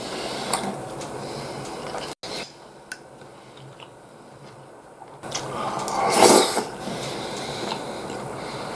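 Eating sounds: a metal spoon scraping a ceramic plate and chewing of soft omelette and rice in thick sauce. A louder noisy rush of about a second comes a little past the middle, and the sound drops out for an instant about two seconds in.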